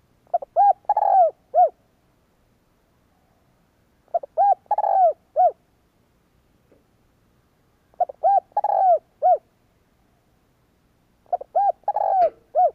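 Spotted dove cooing: four phrases about four seconds apart, each a quick run of short arched coos with a longer coo in the middle.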